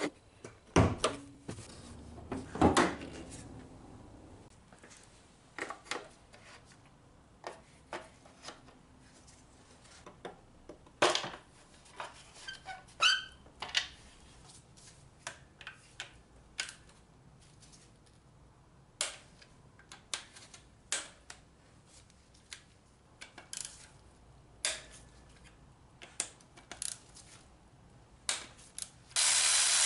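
Hands-on work in a car's engine bay: irregular clicks and knocks of coil-pack connectors, ignition coils and a ratchet being handled on a Honda Civic four-cylinder, with a couple of louder thumps near the start as the hood is released. A loud steady hiss starts suddenly near the end.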